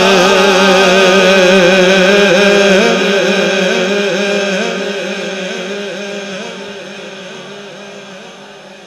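A man's voice singing an Urdu naat, holding the end of a line in one long ornamented note with a wavering pitch. After about three seconds it slowly fades away over several seconds.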